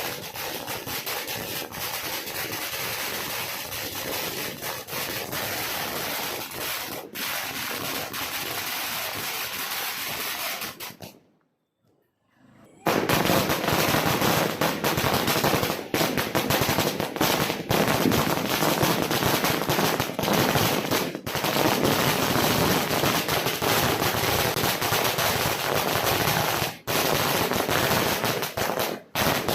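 A Kannan Crackers 10,000-wala firecracker string going off in a rapid, unbroken crackle of bangs. It cuts out abruptly for about a second and a half around eleven seconds in, then resumes louder.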